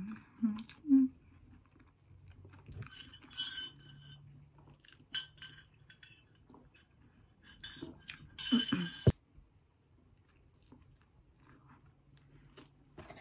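Close-miked mukbang eating sounds: chewing, sips from a glass jar of juice, and glass knocking and clinking. The loudest is a short clatter about two-thirds of the way through.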